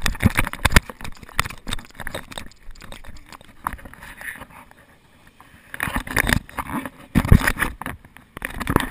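Irregular knocks, bumps and rubbing of a handheld camera being jostled, with a quieter lull for a second or two in the middle.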